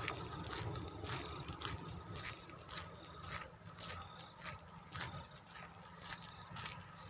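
Footsteps on a paved road, about two steps a second, over a low rumble of wind on the microphone and a faint steady high tone.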